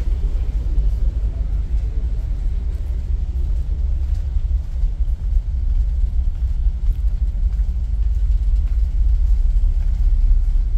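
Steady deep rumble of a passenger ferry's engines and machinery, heard inside the passenger lounge.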